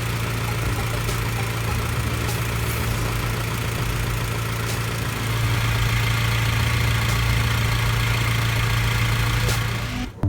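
Honda B18C four-cylinder engine idling steadily, running a little louder about halfway through. The engine has been wanting to die unless given lots of throttle, a sign of low fuel pressure.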